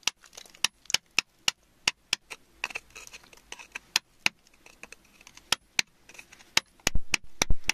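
A thin metal pick poking and scraping through wet, gritty soil and against embedded stones: a string of sharp, irregular ticks and short scrapes, with louder knocks near the end.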